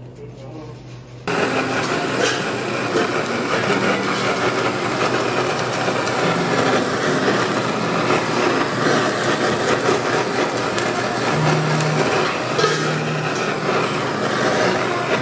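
Handheld butane blowtorch flame hissing steadily as it sears the skin of a raw fish fillet; it starts suddenly about a second in.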